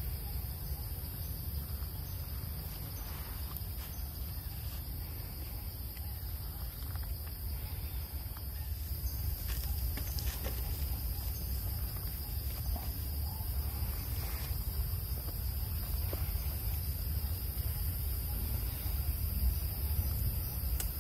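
Steady high-pitched insect drone over a constant low rumble, with a few faint clicks.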